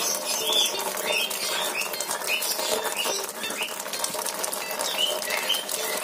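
A thin stream of water pouring and splashing onto a bathing ringneck parrot and its wire cage, with the bird's wet wings flapping in the spray. The splashing goes on steadily, full of small irregular clicks and pats.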